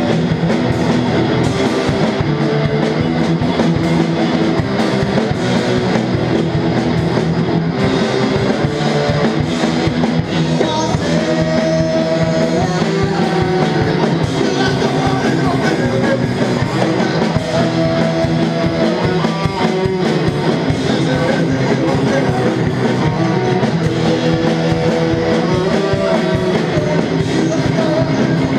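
Live rock band playing loudly: electric guitars over a drum kit, steady and continuous.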